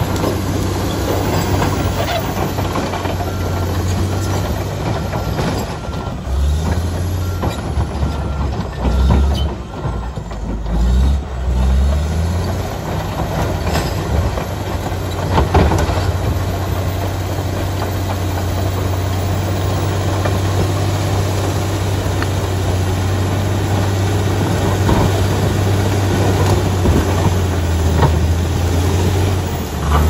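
Komatsu D85EX crawler dozer's diesel engine running under load while its blade pushes rocky soil, with scattered clanks and knocks from the steel tracks and rocks. The engine note drops and wavers for a few seconds near the middle, then steadies.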